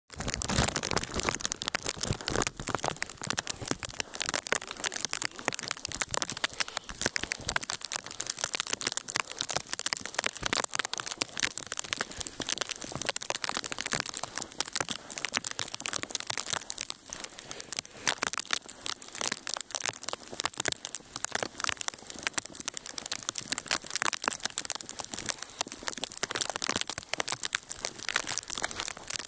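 Ice storm: sleet and freezing rain pelting ice-crusted snow and branches, a dense, steady crackling of countless small ticks with no rhythm.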